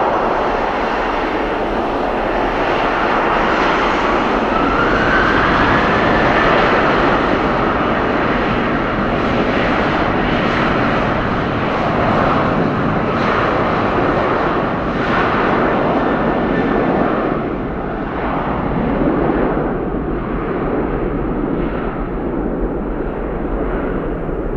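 Boeing 737-800's CFM56 jet engines at takeoff power during the takeoff roll: a whine rises in pitch about five seconds in, then a loud steady jet roar that loses its hiss toward the end as the aircraft moves away.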